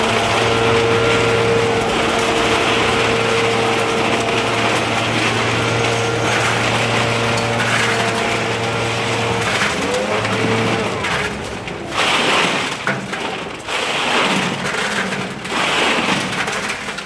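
Gas leaf blower running at full throttle with a steady high engine note, blowing dust off a pickup truck bed. About ten seconds in it drops off, revs once more and shuts off, followed by a few irregular knocks and scrapes.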